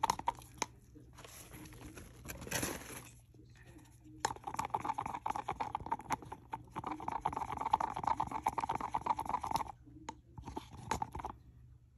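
A stir stick scraping and clicking rapidly against the sides of a mixing cup as two-part resin is stirred. It runs in bouts, quieter for the first few seconds, then a long busy stretch, a short pause about ten seconds in, and a brief last bout.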